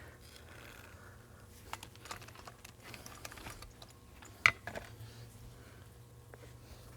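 Small stones and gravel clicking and knocking against rock as cobble and dirt are worked into place by hand, with one sharper click about four and a half seconds in. A low steady hum runs underneath.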